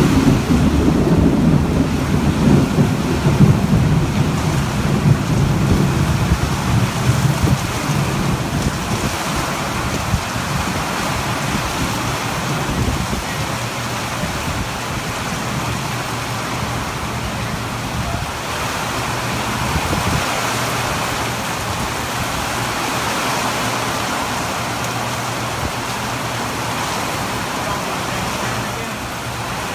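Thunder rumbling loudly and dying away over the first several seconds, over a steady downpour of heavy rain hissing on pavement.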